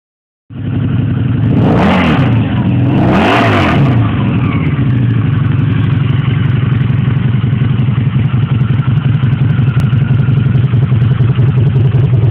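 Harley-Davidson V-Rod Night Rod's V-twin engine starting to sound, blipped twice in quick throttle revs about two seconds and three and a half seconds in, then idling with a steady low rumble.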